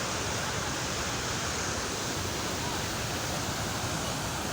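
Murchison Falls, where the Victoria Nile pours through a narrow gorge: a steady, unbroken rush of falling water.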